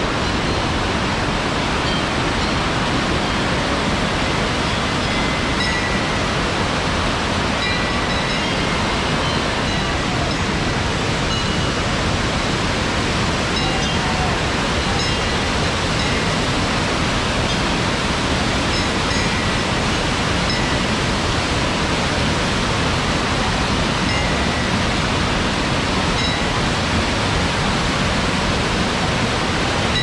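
Waterfall in heavy flood: a steady, dense rush of water pouring over rocks.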